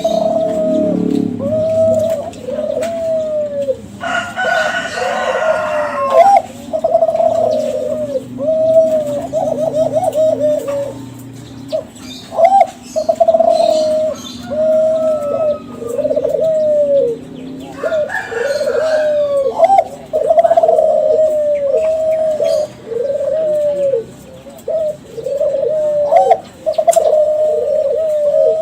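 Kelantan derkuku (spotted dove) cooing continuously, a long run of arched coo notes at about one a second. Short, higher noisy sounds come in twice, about four seconds in and again around eighteen seconds.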